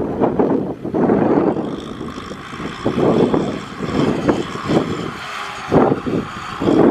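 Tractor diesel engine working hard under load as it drags a trailer full of rice sacks through deep mud, its level surging and dropping unevenly, with a few brief sharp knocks.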